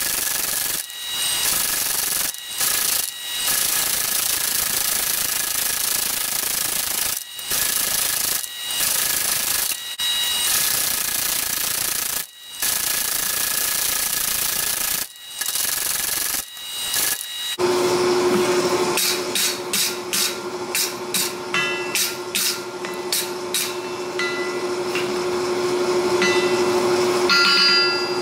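Power hammer pounding hot steel in long runs, broken by short stops, with a ringing metallic tone over the blows. About two-thirds of the way through it stops; a steady hum remains under a series of quick, separate ringing metal strikes.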